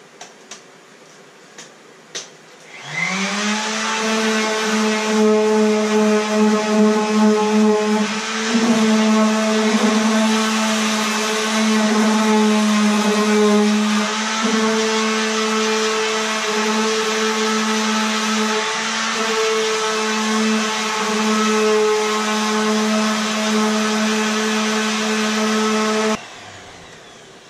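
Electric random orbital sander spinning up with a rising whine, then running steadily as it lightly sands cured gel coat on a fibreglass boat hull with a fine 220-grit disc, its pitch dipping slightly as it is pressed on, and switching off suddenly near the end. A few light clicks come before it starts.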